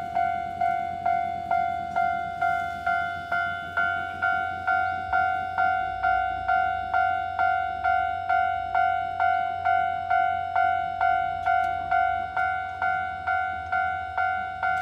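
Japanese level-crossing warning bell ringing steadily, an even ding-ding of about two strikes a second, each strike ringing out briefly. It signals that a train is approaching and the crossing is closing.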